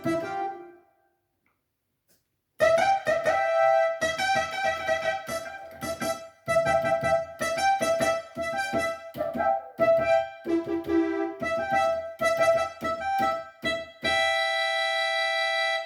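Yamaha PSR-530 electronic keyboard playing one of its built-in voices, a keyboard-like tone with many overtones. After a short silence near the start comes a run of quick notes, and near the end one note is held steadily.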